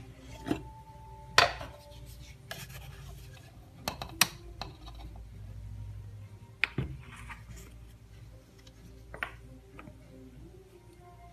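Something being handled: scattered rubbing with about six sharp clicks and knocks, the loudest about a second and a half in, over a low hum.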